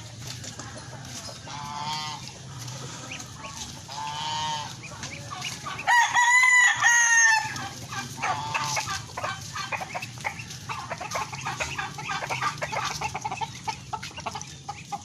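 Chickens clucking, with a rooster crowing loudly once about six seconds in, a call of about a second and a half. Two fainter crowing calls come earlier.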